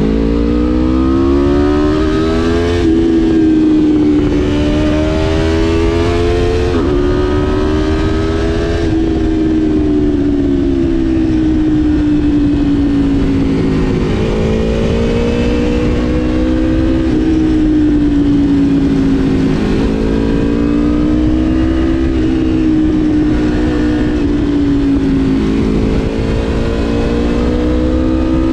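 Aprilia RSV4 Factory's V4 engine under way. The revs climb steeply at the start, dip briefly about three seconds in, then rise and fall every few seconds as the throttle is opened and eased off.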